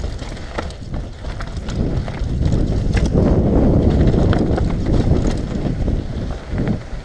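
Full-suspension mountain bike descending a dry dirt trail: tyres rumbling over packed dirt, rocks and roots, with wind buffeting a helmet-mounted microphone. Scattered clicks and rattles come from the bike, and the rumble grows louder through the middle.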